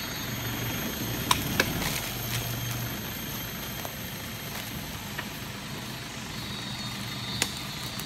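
Toyota Hilux pickup's engine running steadily at low revs as the truck turns around between trees in four-wheel drive, with a few sharp clicks now and then.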